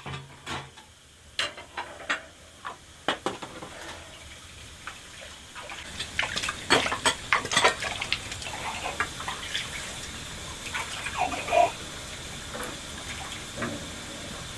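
Water splashing and running, with scattered knocks and clatter, as of something being washed by hand; the splashing grows busier about halfway through.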